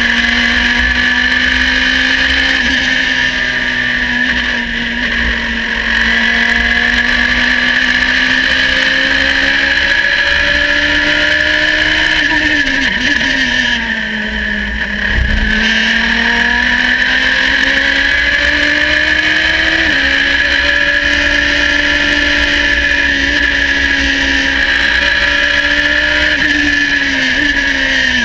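Radical race car's engine running hard under load, recorded from the cockpit. Its note wavers slightly, falls about 13 seconds in as the car slows and shifts down for a corner, with a brief low thump, then climbs again.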